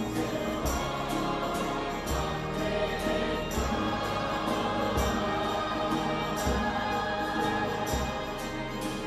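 A youth choir singing an upbeat hymn, with violins and acoustic guitar and a steady beat.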